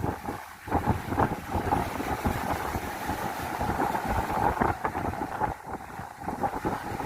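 Wind buffeting the microphone in irregular gusts, over a steady droning hum.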